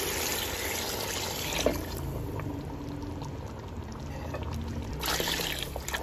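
Hot beef stock (yakhni) poured into a pot of braised beef, splashing into the pot. The pour is strongest for the first two seconds, eases off, and rises again briefly near the end.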